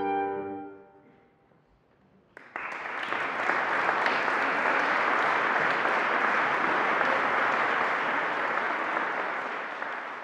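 The last sustained clarinet and piano chord dies away, then after a brief silence applause breaks out about two and a half seconds in and continues steadily, beginning to fade near the end.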